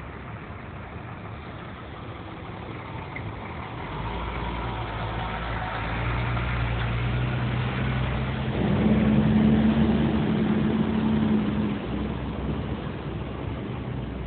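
Motor vehicle engine growing louder from about four seconds in, with a steady low hum, loudest about two-thirds of the way through, then fading.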